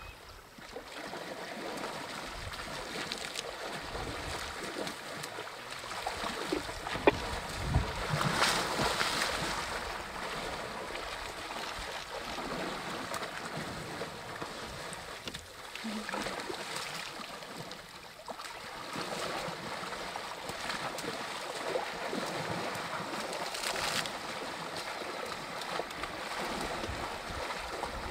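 African elephants splashing and wading in shallow river water, heard as a steady wash of water noise that grows louder for a couple of seconds about eight seconds in.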